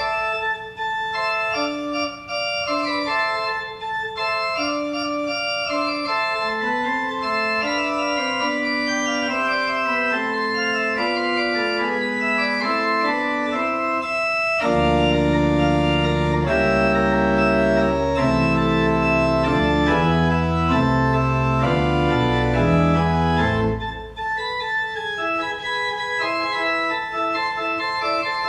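Organ music with sustained chords and moving upper lines. About 15 seconds in it swells to a fuller, louder passage with deep bass notes, then thins back to the lighter texture about 24 seconds in.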